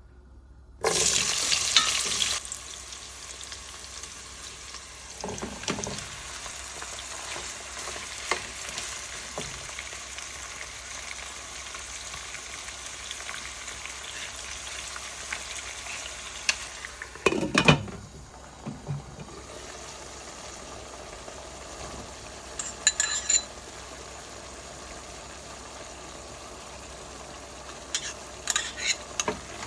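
Food sizzling in hot oil in a pan, with a loud burst of sizzling about a second in and then a steady frying hiss. Scattered clicks and knocks of a utensil stirring against the pan run through it, with a louder knock past the middle.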